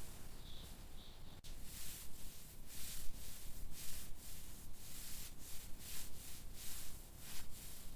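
Quick, repeated rubbing or scraping strokes, about two to three a second, beginning a second and a half in.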